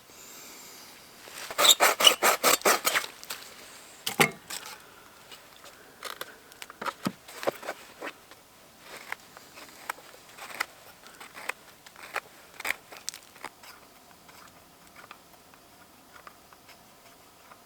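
Wood being worked with a hand tool: a quick run of rasping, saw-like strokes about a second and a half in, then scattered light knocks and clicks of wood handling.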